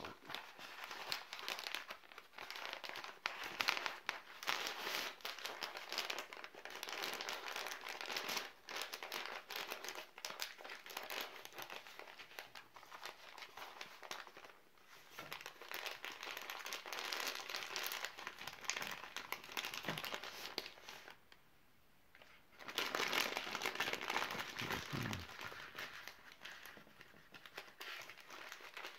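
Plastic pouches and cardboard sleeves of a US MRE ration crinkling and rustling as they are handled and unpacked, with a short pause about three quarters of the way through.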